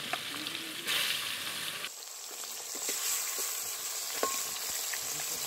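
Pieces of foli fish frying in hot mustard oil in a metal kadai: a steady sizzle with crackling pops, surging about a second in as the pieces go into the oil. A metal spatula clinks once against the pan about four seconds in.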